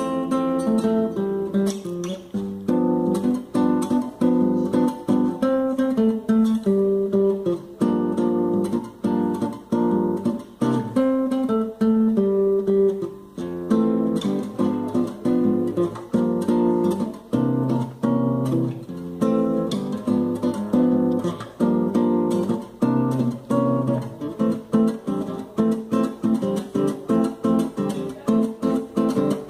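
Acoustic guitar (violão) played solo, a continuous run of plucked notes and strummed chords.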